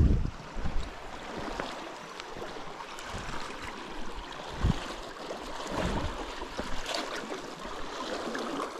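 Sea water lapping and splashing against shoreline rocks, a steady wash, with a few low thumps and small clicks over it.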